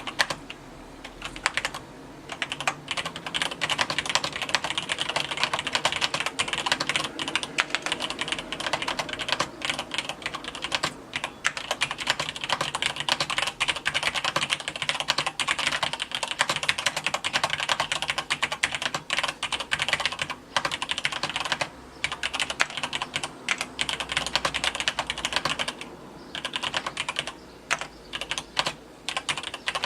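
Cherry G80-3000 mechanical keyboard with Cherry MX Black linear switches being typed on steadily, a dense run of rapid key clacks with a few brief pauses.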